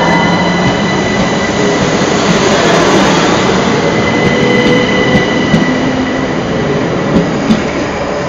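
A Southern Class 377 Electrostar electric multiple unit passing close along the platform: a loud, steady rush of wheel and running noise with a steady high whine. In the second half, a few sharp clicks come in pairs as the wheels cross rail joints.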